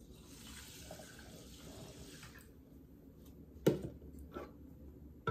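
Water pouring from a plastic measuring jug onto rinsed brown rice in a stainless steel saucepan, a steady splashing stream that stops after about two and a half seconds. About a second later there is a single sharp knock.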